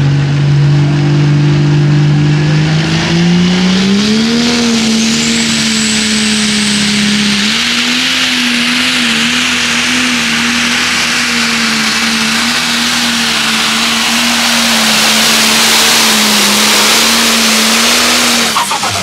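Modified John Deere pulling tractor's diesel engine at full throttle pulling a weight-transfer sled. The engine's pitch climbs steeply a few seconds in, then holds high with slight wavering through the pull, and it drops off sharply near the end as the run finishes.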